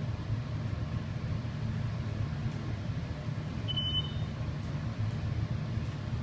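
Dover hydraulic elevator car travelling upward, a steady low hum of the ride and its hydraulic pump, with one short high beep about four seconds in.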